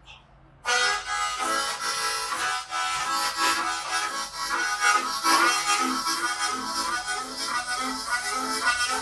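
Harmonica in A playing the train imitation: a fast, even chugging rhythm of breathed chords, starting about a second in.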